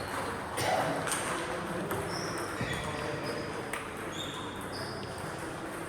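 Hall ambience: short high squeaks scattered throughout, a few sharp knocks, and faint background voices.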